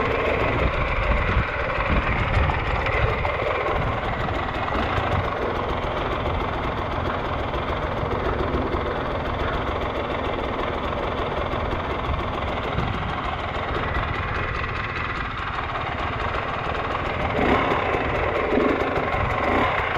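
Enduro motorcycle engine running steadily at low revs.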